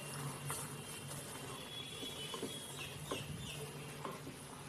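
Wooden spatula stirring dried fruit boiling in sugar syrup in an aluminium pot, with light scattered knocks of the spatula against the pot over a steady low hum. A few short high chirps come about three seconds in.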